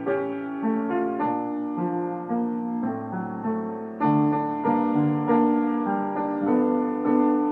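Solo piano playing slow, sustained chords that change every half second or so, growing louder about four seconds in.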